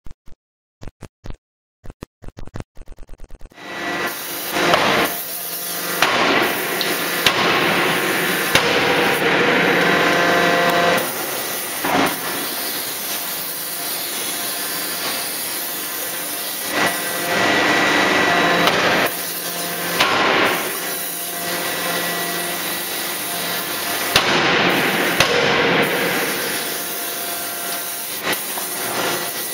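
A 3-ton hydraulic closed-die drop forging hammer striking a red-hot billet, with separate heavy blows every few seconds over a steady hiss and rumble from the forge shop. It opens with a run of sharp ticks that quickly speed up into a buzz.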